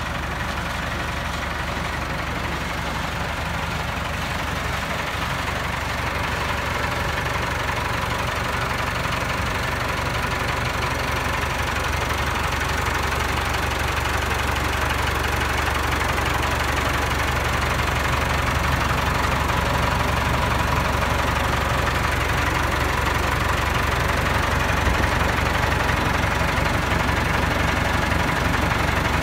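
Farm tractor's diesel engine running steadily at an even speed, growing slightly louder over the stretch.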